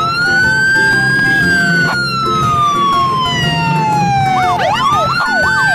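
Police water cannon truck's siren wailing: one long sweep that rises quickly and then falls slowly for several seconds. About four and a half seconds in, a fast yelping warble starts together with a new rising wail.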